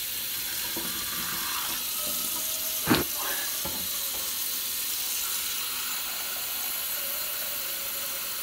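Kitchen faucet running into a saucepan in a sink: a steady rush of tap water filling the pot. One short knock about three seconds in.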